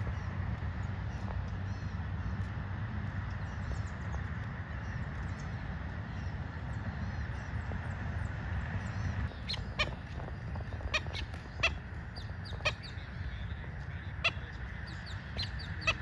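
Birds calling outdoors: faint chirps throughout over a steady low rumble, then sharp, loud calls about once a second through the second half.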